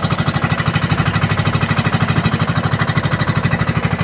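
Small boat engine running steadily with a fast, even pulsing beat.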